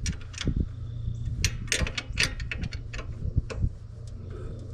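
A string of sharp, irregular clicks and light knocks, over a steady low hum.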